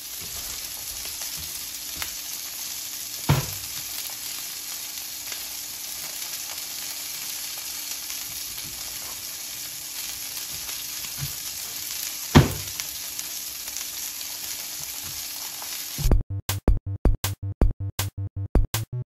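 Steaks sizzling as they sear in a hot cast-iron skillet, a steady hiss, with two sharp knocks about three and twelve seconds in. Near the end, music with a steady pulsing beat comes in.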